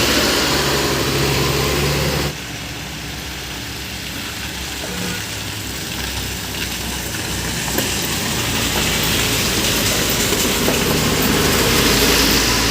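Motor vehicle engines idling and running slowly in stalled traffic. The sound changes abruptly about two seconds in, then slowly grows louder.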